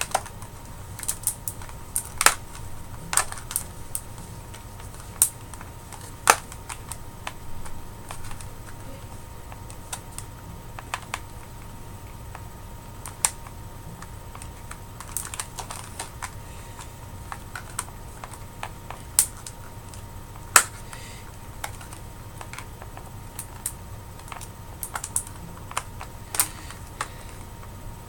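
Scattered sharp clicks and crackles of plastic toy packaging being handled as an action figure and its twist ties are worked loose from the box, over a faint steady hum.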